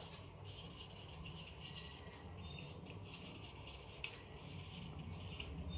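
Faint scratchy strokes of handwriting, a pen or marker moving over a writing surface in short irregular strokes, over a low steady hum.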